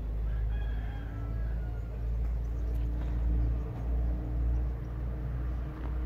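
A rooster crowing once, a slightly falling call in the first two seconds, over a steady low rumble.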